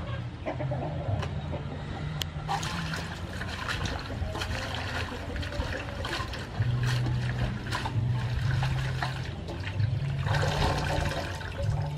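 Water sloshing, splashing and dripping as leafy greens are swished and lifted by hand in a metal basin of water, with a louder burst of splashing and dripping near the end.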